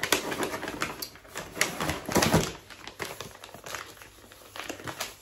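Plastic food packaging crinkling and rustling as it is handled: an irregular run of crackles and clicks, loudest about two seconds in.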